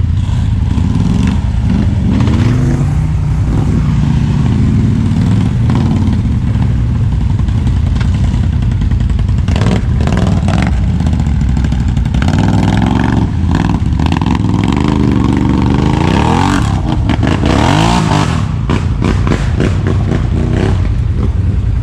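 ATV engine running hard and revving up and down repeatedly, as when riding through mud, with noisy clattering stretches in the middle.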